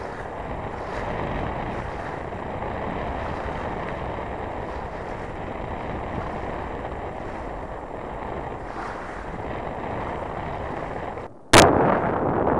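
Steady rush of wind and water noise aboard a sailboat under sail. Near the end the sound drops out for a moment, then a sharp click and louder wind buffeting on the microphone.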